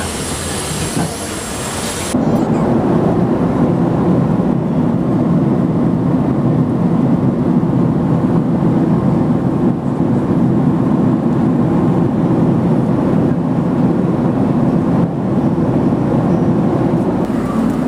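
Steady, loud roar of a jet airliner's cabin in flight, engine and airflow noise heard from a window seat. It begins with a sudden change about two seconds in; before that, a brief hissing rush of outdoor noise beside the aircraft at boarding.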